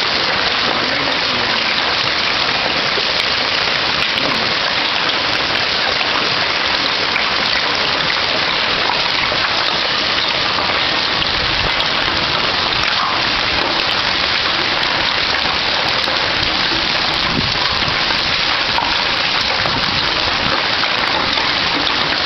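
Hailstones hitting a garage roof and the alley pavement in a heavy storm: a steady dense patter with scattered sharp ticks.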